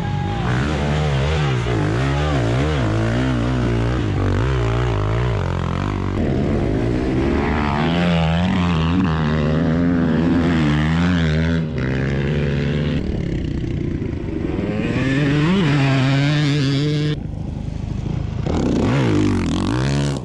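Dirt bike engines revving hard and falling back under load, the pitch rising and dropping again and again, with abrupt switches from one bike to another.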